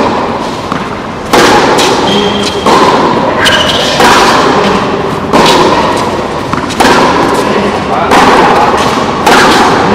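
Tennis rally: racket strings hitting the ball about every 1.3 seconds, the two players' shots alternating, seven hits in all, each one echoing under the court's metal roof.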